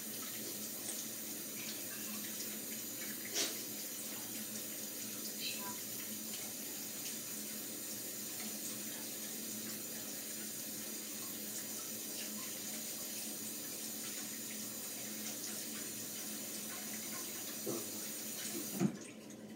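Water running steadily from a tap, with a few light clinks and knocks. It shuts off suddenly right after a knock, about 19 seconds in.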